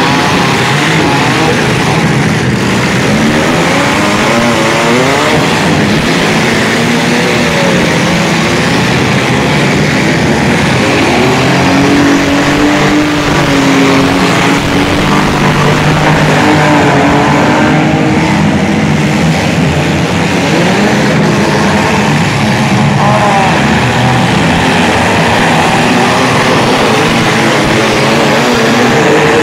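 Engines of several battered compact demolition-derby cars running and revving together, loud and continuous, their pitch sliding up and down as the drivers accelerate and back off.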